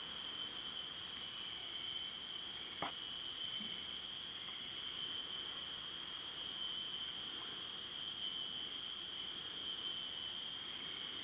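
Steady high-pitched insect chorus in a tropical forest: several shrill tones holding unbroken, with a single click about three seconds in.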